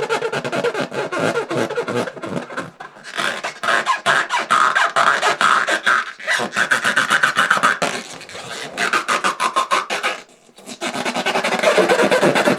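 Inflated rubber balloon being rubbed and squeezed, a rapid squeaky rasping of skin dragging over the taut rubber, with short breaks about two, six and ten seconds in.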